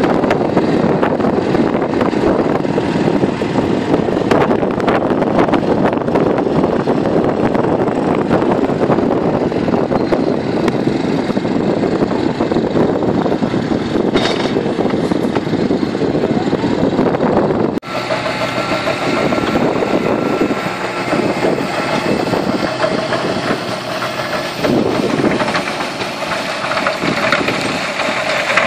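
Claas Arion 410 tractor engine running under load as its front loader digs into and lifts manure. About two-thirds of the way in, the sound cuts to a tractor working the Pichon M1350 manure spreader, with a steady whine over the engine while the spreader throws manure.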